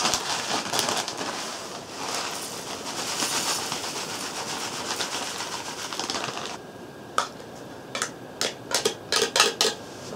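Plastic bag rustling and crinkling while its contents are poured into a pot, for about the first six and a half seconds. After that come a run of sharp clicks and taps from a metal spoon against the small pot as the food is stirred.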